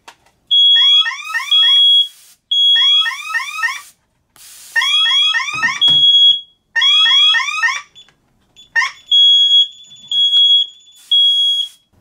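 Fire alarm sounding on a DSC PowerSeries Pro alarm system, with repeated loud bursts of fast rising siren chirps over a steady high beep. Near the end only the steady beeps go on, then the alarm cuts off as it is cancelled at the keypad.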